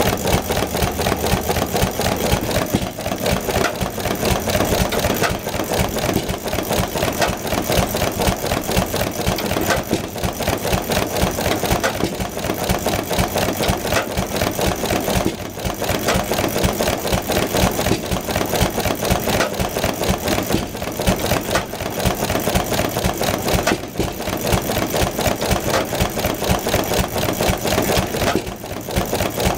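McCormick-Deering Model M 1 1/2 HP single-cylinder hit-and-miss stationary engine running steadily, ticking away in a fast, even clicking rhythm.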